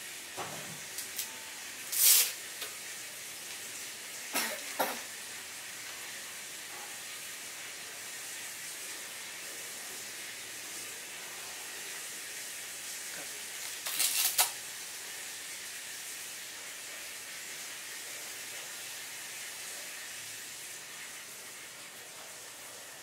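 Steady faint hiss with three brief rustling, clicking handling sounds, about two, four and a half and fourteen seconds in, as plastic FPV goggles are fitted and adjusted on a child's head.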